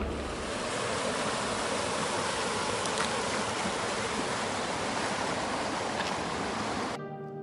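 Steady rushing of a small rocky river. It cuts off near the end.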